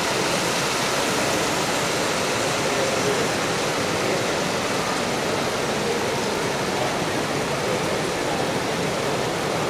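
Steady hubbub of a crowded exhibition hall: a dense wash of many distant voices and general noise with no single sound standing out.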